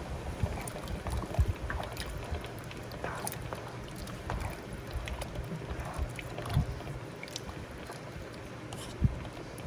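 Pot of lentil and potato soup heating on the stove toward a boil: a steady low hum and hiss with scattered small ticks and pops, and two dull knocks, one about a second and a half in and one near the end.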